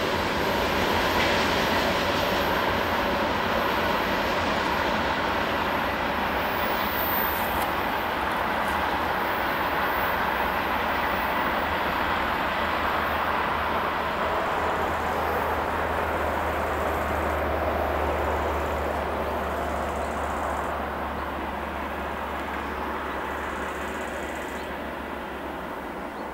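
Freight train's open wagons rolling away along the track: a steady rumble of wheels on rail that slowly fades over the last several seconds as the train recedes.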